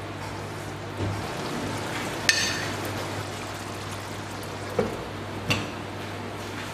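A metal spoon clinks against the cooking pot about two seconds in, then the pot's glass lid clanks twice as it is set on, over a steady low hum.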